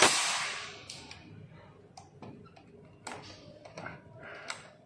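A nail gun fires once as the sound opens, shooting a nail through a metal wall-panel clip: a sharp crack followed by a hiss that fades over about a second. After it come a few light clicks and taps of metal as the nailer is set against the clip.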